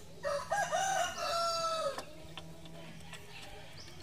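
A rooster crowing once: a stepped call that ends in one long held note, about two seconds in all.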